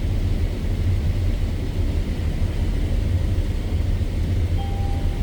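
Combine harvester running, heard from inside the cab: a steady low rumble of engine and threshing. A brief faint tone sounds near the end.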